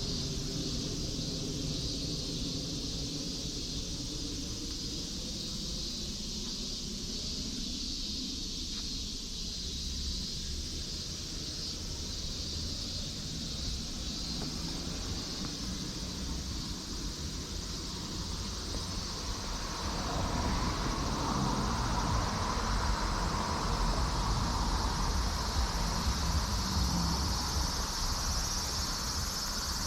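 Steady high buzzing of an insect chorus over a low outdoor rumble; from about twenty seconds in, a louder rushing noise joins it.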